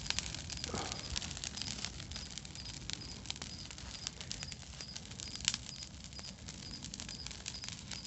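Wood bonfire crackling, with many sharp irregular pops and snaps over a steady low rush. A faint high chirp repeats every half second or so.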